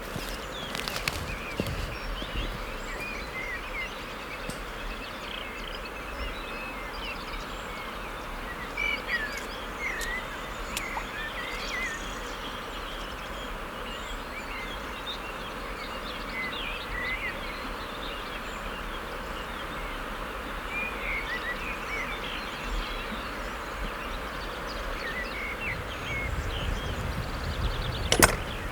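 Small birds singing in spring, many short chirps and song phrases over a steady outdoor hiss, with an occasional click.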